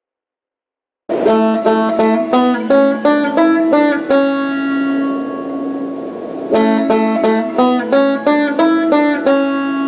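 Banjo being picked: a quick run of plucked notes starting about a second in, one note left ringing for a couple of seconds in the middle, then another run of notes.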